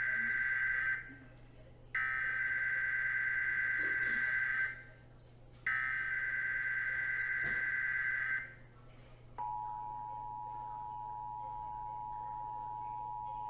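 Emergency Alert System SAME header data bursts: a burst of harsh buzzing data tones is already under way and ends, then two more follow, each about a second apart. About nine seconds in, the steady two-tone EAS attention signal begins. This is the start of a Required Monthly Test alert.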